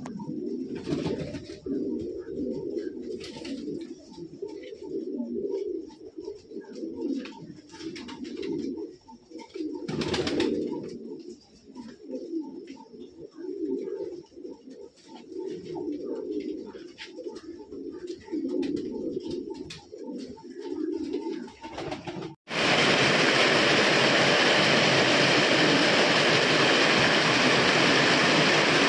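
Domestic pigeons cooing over and over in low, rolling coos, with occasional light clicks. About 22 seconds in, the cooing cuts off and a loud, steady rushing noise takes over.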